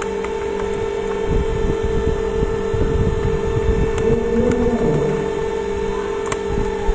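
A steady mid-pitched hum throughout, under low scraping and rumbling from handling the steam iron's parts as it is taken apart. Two sharp clicks come about four and six seconds in.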